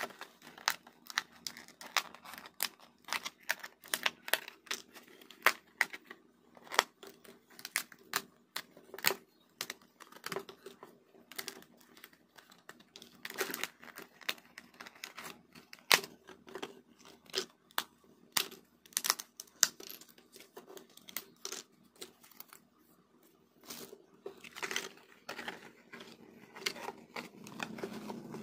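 Die-cut 3D puzzle pieces being pressed out of their printed puzzle sheet: an irregular run of sharp snaps and small tearing sounds as the pieces break free.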